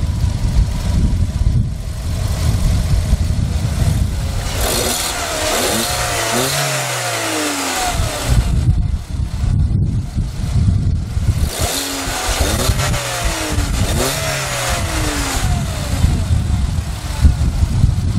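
2014 Volkswagen Jetta VI Highline's petrol engine revved twice, its pitch climbing and falling back each time, over a steady engine rumble.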